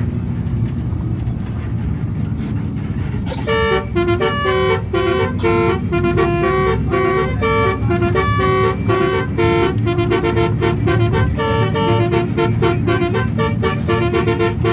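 Indonesian 'telolet' multi-tone bus horn playing a quick stepping melody of horn notes, starting about three seconds in and going on without a break, over the steady low rumble of the bus.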